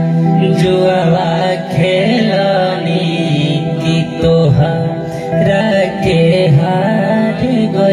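A man singing a rustic Bhojpuri folk wedding song (vivah geet) into a microphone, his melody wavering over a steady low drone.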